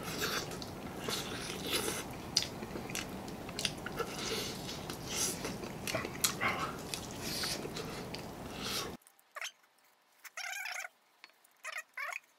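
Eating sounds: biting, chewing and crunching of crispy breaded fried chicken, with many short clicks and smacks over a steady background hiss. About nine seconds in the hiss cuts off abruptly, and a few short, wavering squeaky sounds follow.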